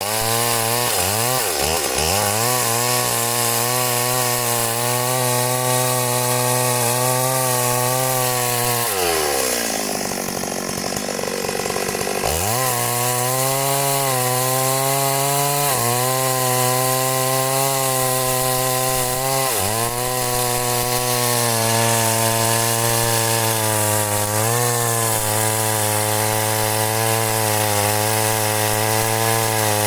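Two-stroke chainsaw running at high revs while cutting wood, with a steady engine note. About nine seconds in the revs drop away for a few seconds and then climb back, and there are brief dips around twenty and twenty-five seconds.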